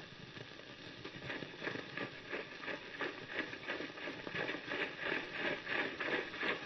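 Rhythmic footfalls, about three a second, growing louder toward the end, like a group of people marching or jogging.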